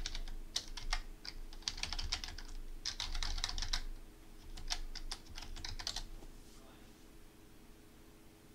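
Typing on a computer keyboard: a quick run of key clicks that stops about six seconds in, over a faint steady hum.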